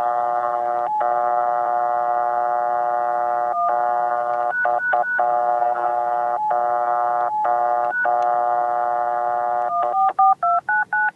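Steady telephone dial tone from a C*NET gateway over a satellite phone call, broken a few times by short single keypad beeps. Near the end the dial tone cuts off and a quick string of touch-tone (DTMF) digits is sent as the number is dialled.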